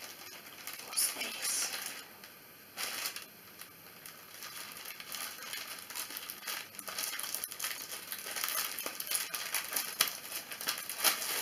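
Packaging crinkling and rustling as a wrapped kimono is handled and unwrapped. A few short rustles come first, then denser, continuous crinkling from about halfway through.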